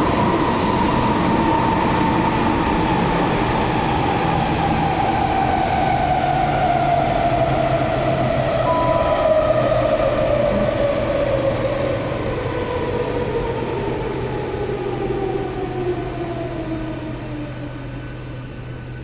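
Metro train's electric traction motors whining over the rumble of the wheels, the whine falling steadily in pitch as the train slows, the sound fading near the end. A short beep sounds about nine seconds in.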